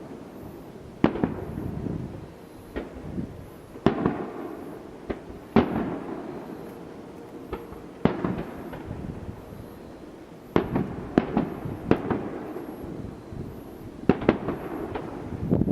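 Aerial fireworks shells bursting, about a dozen sharp bangs at irregular intervals, each trailed by a rumbling echo.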